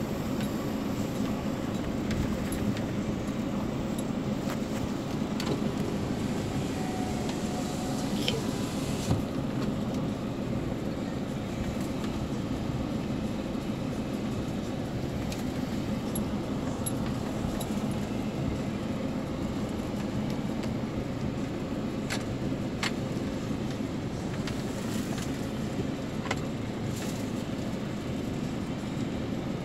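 Steady engine and road rumble heard from inside a car's cabin as it drives slowly along a rough dirt track, with a few short clicks and rattles scattered through it.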